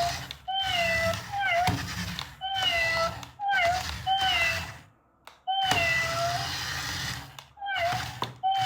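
Toy robot cat playing the same short electronic meow over and over, about once a second, over a low hum, with a brief pause about five seconds in.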